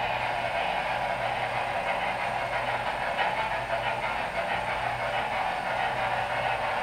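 HO-scale Broadway Limited Imports N&W Y6b model steam locomotive with Paragon3 sound, running with a long freight train: the onboard steam sound mixed with the wheels of the model cars rolling on the track, a steady noise.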